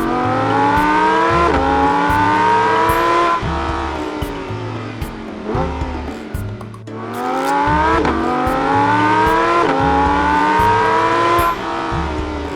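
Engine accelerating hard through the gears, its pitch climbing and dropping back at each shift, in two runs of several shifts, over music with a steady low beat.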